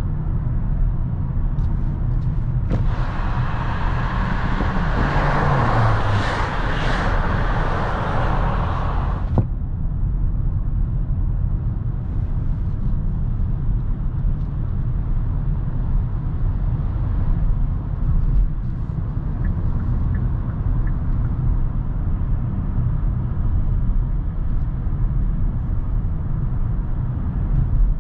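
Kia Sorento's 2.2 CRDi four-cylinder diesel SUV on the move, a steady low rumble of engine and road noise. About three seconds in, a loud hiss sets in for roughly six seconds, with a low tone falling in pitch, then stops abruptly.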